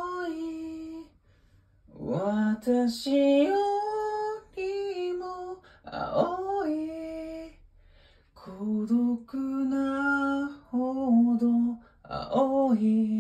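A solo voice singing a cappella, with no accompaniment: several short sung phrases, some ending on held notes, with brief near-silent pauses for breath between them.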